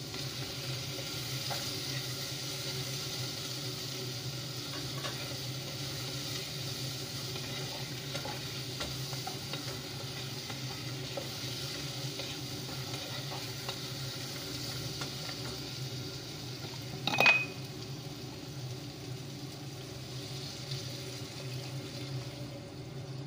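Food sautéing in a large pot on a gas stove: steady sizzling while a wooden spatula stirs, with one sharp ringing metal clank about seventeen seconds in. Near the end, water is poured into the pot from an electric kettle.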